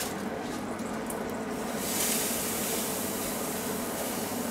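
Kitchen extractor hood fan and a hot-air fryer's fan running together: a steady rushing noise with a low motor hum.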